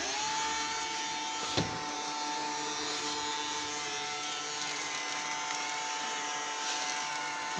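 Bowai Stan A2 robot vacuum running: its motor spins up quickly and then runs steadily with a high, even whine over a hiss of suction and brushes, a low noise level. There is a single knock about a second and a half in.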